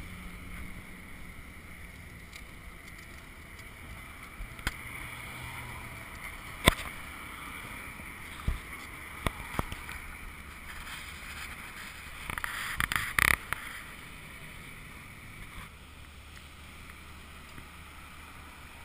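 UPPAbaby Vista stroller's wheels rolling along a concrete sidewalk: a steady rumble with a few sharp knocks, and a louder rattling clatter about 13 seconds in.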